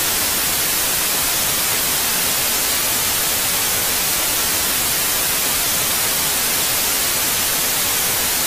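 Steady, even hiss of white noise, like television static, with no tone or rhythm in it.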